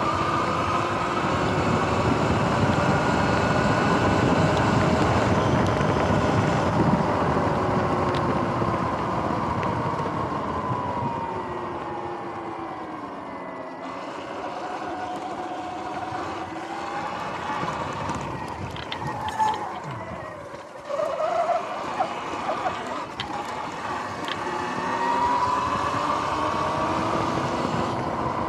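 Sur-Ron X electric dirt bike riding: its motor and drive whine, rising and falling in pitch with speed over rushing wind and tyre noise. The whine sinks low near the middle as the bike slows, then climbs again as it speeds back up.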